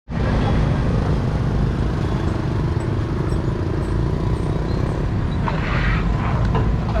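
Steady low engine rumble aboard a river ferry, with a brief higher-pitched noise about five and a half seconds in.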